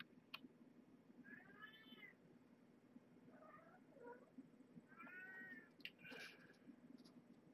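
Faint high-pitched mews from 33-day-old kittens: two clear arching meows about a second and a half in and again around five seconds, with softer short squeaks between them. A few light clicks are heard.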